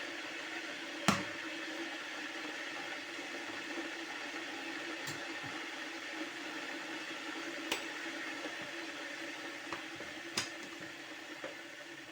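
Steady hissing hum of kitchen background noise, with a few sharp clicks or knocks, the loudest about a second in.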